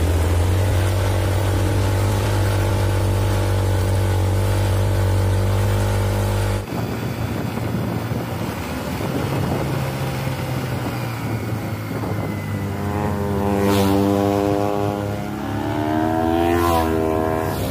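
Mitsubishi Fuso Canter truck's diesel engine running in a steady low drone as it pulls up a steep climb. About six and a half seconds in the sound cuts suddenly to quieter road noise, and in the last few seconds an engine revs, its pitch rising and wavering.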